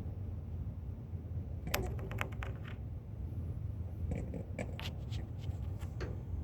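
Light clicks and scrapes from handling, in a quick cluster about two seconds in and again from about four to six seconds, over a steady low rumble.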